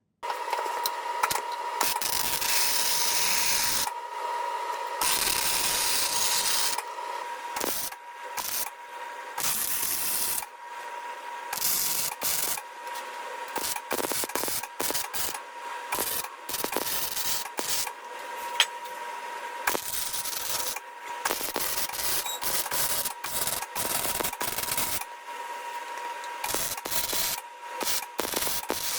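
Welding a steel exhaust pipe joint: the welder crackles and sizzles in a series of short runs of one to a few seconds each, stopping and restarting between them, with a faint steady tone underneath.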